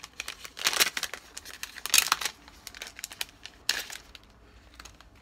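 A product wrapper crinkling as it is handled, in several short rustling bursts; the loudest comes about two seconds in.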